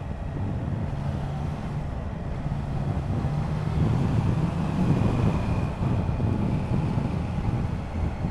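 Triumph Trident 660's inline three-cylinder engine running under way, with wind noise on the microphone; it gets somewhat louder about four seconds in.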